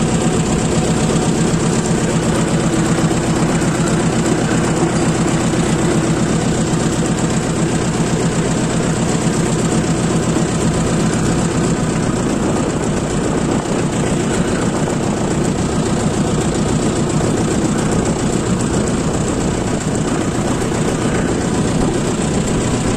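Tractor engine running at an even speed as the tractor drives along.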